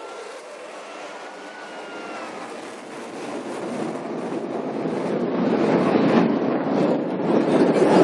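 Fighter jets passing overhead: a steady rushing jet-engine roar that builds louder from about three seconds in.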